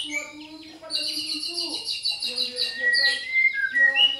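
White-rumped shama singing a fast, varied song: quick runs of rapidly repeated high notes, then a few clear whistled notes sliding up and down near the end.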